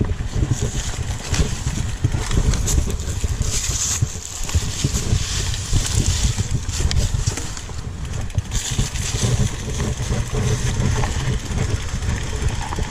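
Mountain bike riding downhill on a dirt trail: wind buffets the microphone in an uneven low rumble while the tyres and bike rattle and click over rough ground, with patches of hiss.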